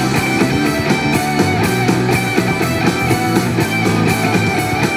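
Guitar-led pop song playing at maximum volume through an Apple HomePod (2nd generation) smart speaker, picked up by a microphone in front of it.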